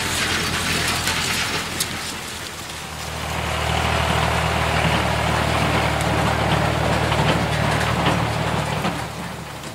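Heavy farm machinery engine running steadily, a low drone that grows louder about three seconds in and cuts off abruptly at the end, over a steady hiss.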